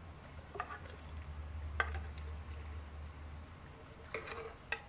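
Cooked chiles and their cooking liquid being poured from a clay pot into a glass blender jar, with a few light knocks and clinks of the pot against the jar, more of them near the end.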